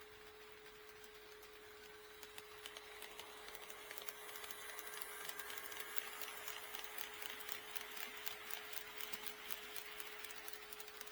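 HO scale model train running past, its wheels clicking quickly over the rail joints; the clicking sets in about two seconds in, grows louder and eases a little near the end. A faint steady tone runs underneath.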